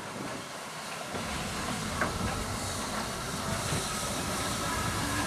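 Steam locomotive approaching slowly, tender-first: a steady hiss of steam over a low rumble of wheels on the rails, growing louder, with a single click about two seconds in.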